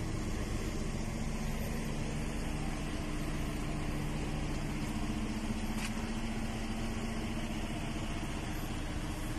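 A vehicle engine idling: a steady low hum with a few constant tones, one of which drops out about halfway through.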